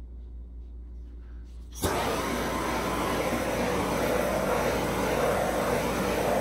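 Handheld gas torch lit with a sudden start about two seconds in, then a steady flame hiss as it is passed over wet epoxy resin.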